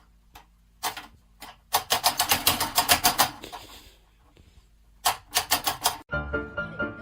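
Rapid runs of sharp taps or clicks, about seven a second, in two bursts, typewriter-like. Piano music comes in just before the end.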